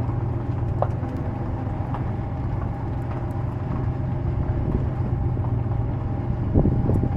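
Vehicle running steadily on the move, a constant low engine and road hum.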